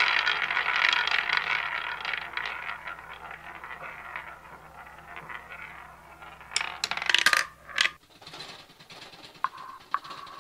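Playing cards clattering and sliding onto a table in a dense flurry of small clicks that thins out over several seconds, with a few sharper bursts of card slaps around the middle and then single ticks near the end. A steady low hum underneath stops about two-thirds of the way in.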